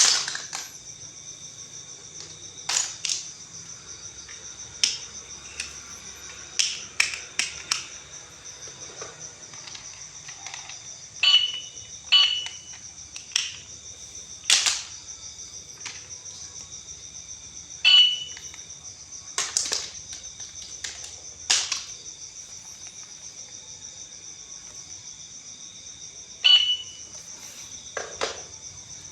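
Scattered sharp plastic clicks and taps from toys being handled, four of them with a short electronic beep like a toy's button, over a steady high insect-like trill.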